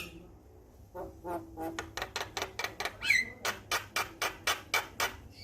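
Male Javan myna (jalak kebo) giving a rapid run of harsh clicking calls, about four or five a second, starting about a second in, with a short falling whistle about three seconds in.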